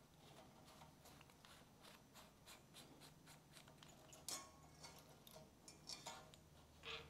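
Faint, irregular clicks and taps as a small carburettor is handled and its fittings worked by hand, with a few louder clinks about four, six and seven seconds in, over a low steady hum.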